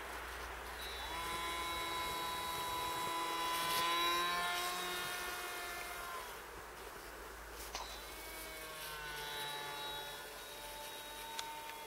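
Nine Eagles Sky Runner RC plane's electric motor whining as the plane flies past, growing louder to a peak about four seconds in and then fading. The whine comes back more quietly on a second pass near the end.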